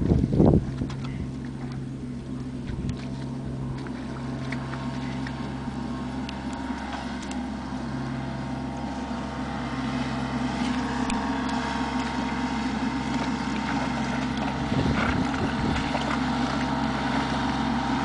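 Tractor engine running steadily, a low, even hum that grows slightly louder about halfway through.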